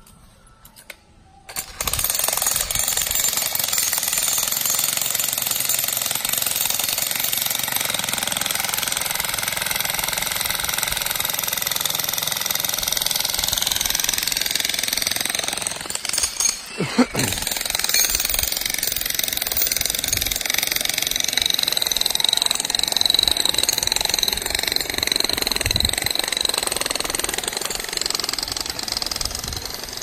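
Jackhammer breaking up rocky ground. It starts about two seconds in and hammers continuously, with a brief break about halfway through.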